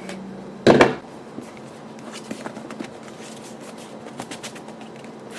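A phone's retail box being opened and its packaging handled: a loud rustle-thump about three-quarters of a second in, then light scraping, rubbing and small clicks of the packaging.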